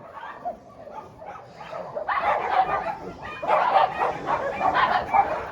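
Several dogs squabbling, barking and yipping at one another. It is quieter at first and builds into a louder, busier tussle from about two seconds in.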